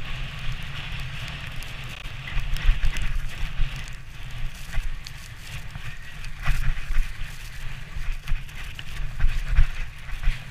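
Wooden sledge runners scraping and hissing over packed snow at speed, over a low rumble, the loudness rising and falling unevenly with a few short cracks.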